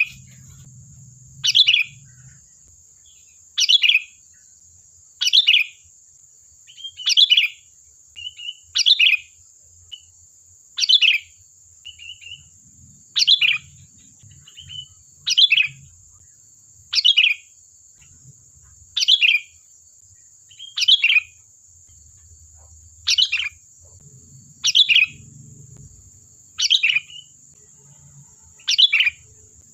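Sooty-headed bulbul (kutilang) repeating a short, loud call about every two seconds, with softer short chirps between some of the calls.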